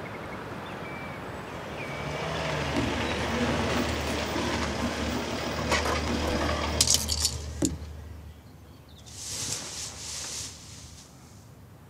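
A car driving up, its engine hum and tyre noise swelling and then dying away about eight seconds in. A cluster of sharp clicks and knocks comes just before it stops, followed by a short hiss.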